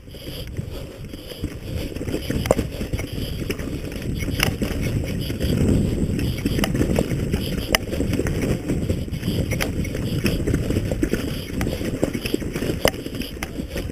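Mountain bike ridden fast down a rough trail, picked up by a camera on the rider or bike: a continuous rumble with sharp clacks and knocks as the bike jolts over rocks and roots.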